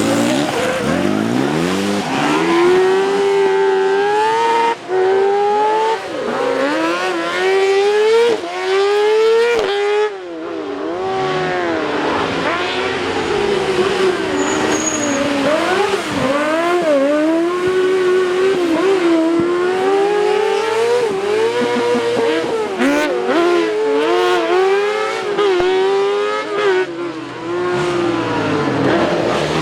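Rally car engine driven hard, its pitch repeatedly climbing and falling as it revs up, shifts gear and lifts off, with brief drops in loudness at the shifts.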